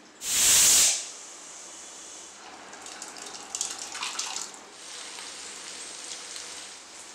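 Kitchen cooking sounds: a short loud rush of noise just after the start, then thick cooked dal pouring and splashing from a pressure cooker into a steel pot, then a steady sizzle of sliced ivy gourd frying in a kadai.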